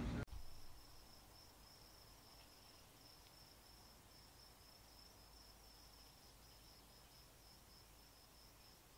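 Faint, steady high-pitched trilling of crickets over a low background hiss. A louder low rumble from the preceding shot cuts off abruptly just after the start.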